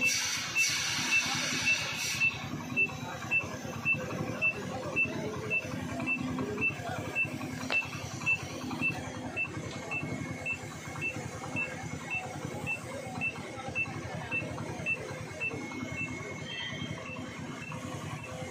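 An electronic beeper sounding a short high beep just under twice a second, in an even rhythm, over a low rumble of engines. A loud hiss in the first two seconds cuts off.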